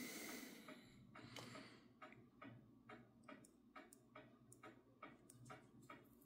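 Near silence with a faint, steady ticking, about four ticks a second, and a brief soft rustle at the start.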